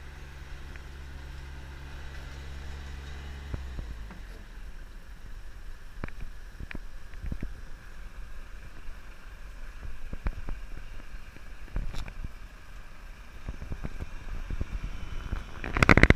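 Diesel engine of a Volvo FM truck-mounted asphalt paver running steadily, its tone dropping about three and a half seconds in, with scattered clicks and knocks from the working machinery and a brief loud clatter near the end.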